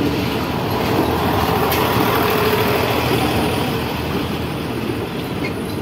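KRDI diesel multiple unit cars rolling slowly past at close range: a steady heavy diesel engine running under the train, with the wheels on the rails. The sound eases off a little toward the end.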